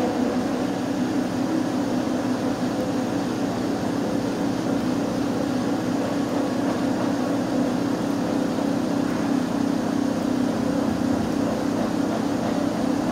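Ship lift's drive machinery running: a steady, even hum with a strong low drone and a fainter higher tone above it.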